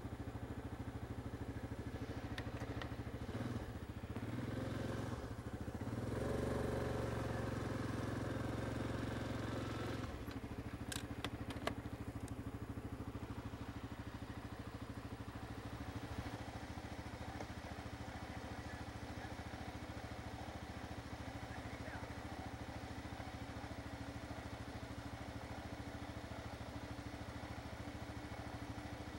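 Yamaha Grizzly ATV's single-cylinder engine running at a steady idle while its winch pulls a stuck quad out of soft sand. The sound swells for several seconds in the first third, and a few sharp clicks follow soon after.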